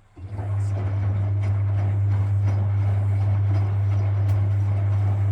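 Frigidaire Super Deluxe Automatic 50 washing machine's induction motor starting up and turning the drum, with a strong low hum under water and laundry sloshing and a few light clicks. It kicks in abruptly about a quarter second in and eases off near the end, as the wash tumble runs in bursts.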